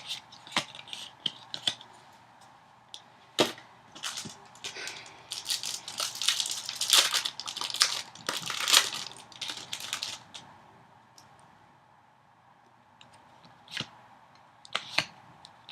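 Foil wrapper of a Yu-Gi-Oh! booster pack crinkling and tearing open, with many sharp clicks and crackles. It is loudest and densest in the middle, goes quieter after about ten seconds, and a few clicks come near the end.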